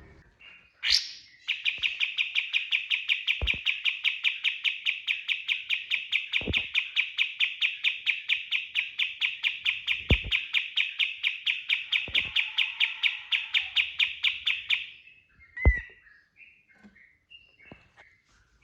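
Kapas tembak songbird singing a long rapid-fire trill of evenly repeated notes, about five or six a second, for some thirteen seconds, then stopping. A few dull thumps fall under it. Near the end a louder thump comes with a short chirp, followed by scattered single chirps.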